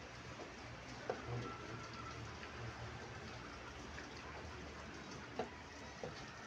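Quiet room tone with a steady low hum, broken by three sharp clicks of chess play (pieces set down or clock pressed): one about a second in and two close together near the end.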